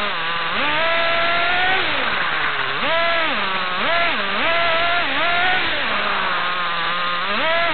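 Kyosho Fazer Pure Ten 1:10 RC touring car's small two-stroke glow (nitro) engine, heard from on board the car, revving up and dropping back about five times as the car accelerates and backs off; a high, buzzing engine note.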